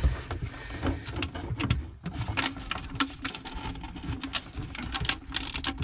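Irregular clicks, crackles and rustling as hands handle an old boat exhaust blower and its brittle ribbed vinyl hose.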